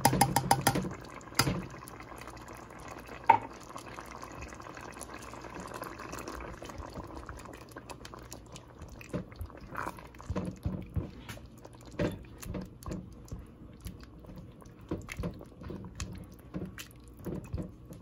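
A pot of coconut-milk stew simmering and bubbling, with wet, sloshy sounds. In the first few seconds there are a few sharp knocks as the sardines go in, and from about ten seconds in a spatula stirs the pot, knocking and scraping irregularly against it.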